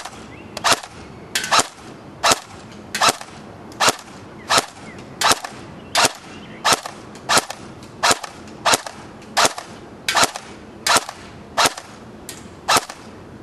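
Dboys RK06WS AK74 airsoft electric gun firing single shots on semi-auto, a steady string of sharp reports a little faster than one a second.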